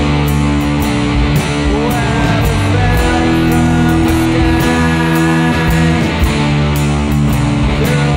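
Rock music: electric guitars playing sustained chords over a steady beat.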